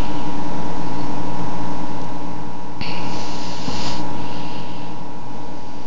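A steady mechanical hum under an even hiss. The hiss brightens for about a second midway, then settles back.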